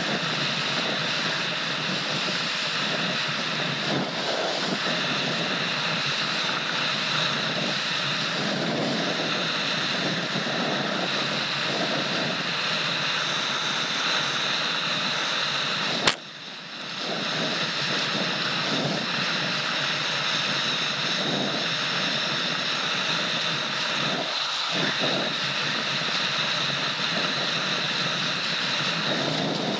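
Steady rush of wind and water spray on an action camera skimming fast across choppy water with a kiteboard. About sixteen seconds in, one sharp knock, after which the sound drops away briefly and comes back.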